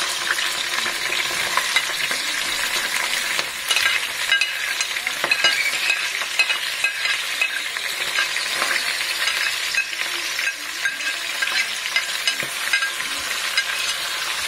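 Sliced red onions sizzling as they go into hot oil and ghee in an aluminium stock pot, with green chillies and whole spices already frying. A steel spoon scrapes and taps the onions off a plate, making small clicks over the steady sizzle.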